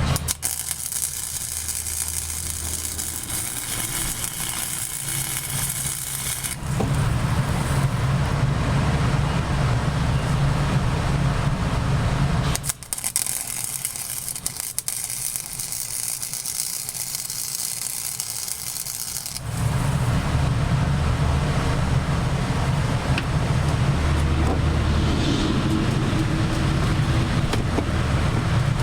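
Electric welder laying beads: two runs of steady hissing, crackling arc, each about six to seven seconds long, with a low steady hum in between and after them.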